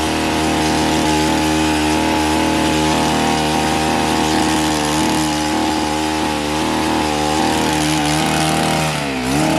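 Small petrol engine of a garden power tool running steadily at high revs; near the end its pitch drops sharply and then climbs back up.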